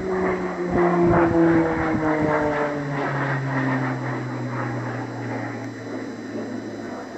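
Plane flying overhead, its engine note falling steadily in pitch as it passes and then fading.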